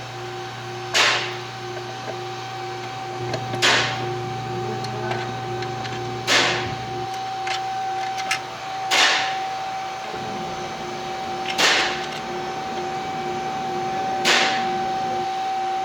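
Six sharp knocks, evenly spaced about every two and a half seconds, over a steady electrical-sounding hum.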